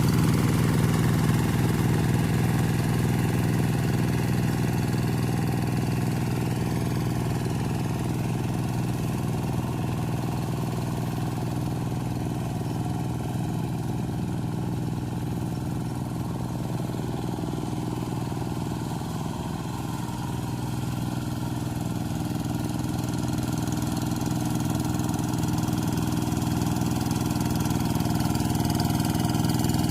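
Single-cylinder Kubota RD85 DI diesel engine of a Quick TL800 two-wheel hand tractor running steadily. It grows a little quieter about two-thirds of the way in, then louder again near the end.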